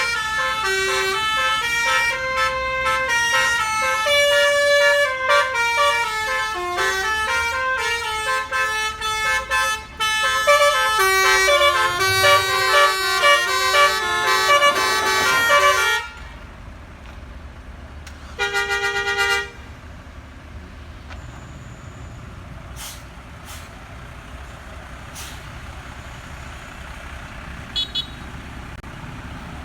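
Bus 'telolet basuri' multi-tone air horn playing a melody of stepping notes, which stops abruptly after about sixteen seconds. A couple of seconds later comes one short single-note horn blast. Then only quieter vehicle noise remains.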